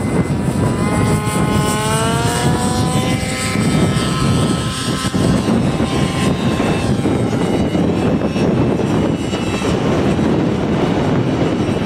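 Radio-controlled model helicopter spooling up, its whine rising in pitch over the first few seconds, then lifting off and flying with a steady engine and rotor drone.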